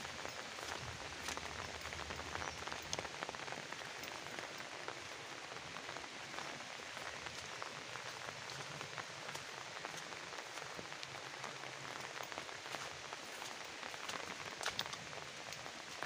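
Steady rain falling, with many scattered sharp ticks of individual drops.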